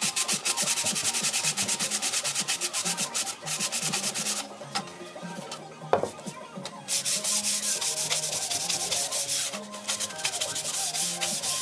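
220-grit contour sanding sponge rubbed by hand along the edges of a raw wooden board in quick back-and-forth strokes, a dry scratchy rasp. The strokes thin out about halfway, with a single knock as the board is handled, then start again.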